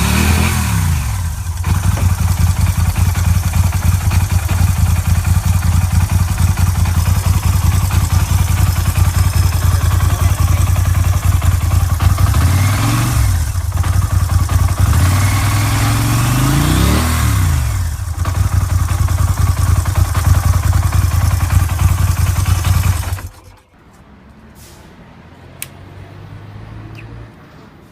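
Norton Commando 961 parallel-twin engine running with a steady throb, its revs falling just after the start and then blipped up and back down twice in the middle. About 23 seconds in the engine sound cuts off abruptly, leaving a faint low hum with a few clicks.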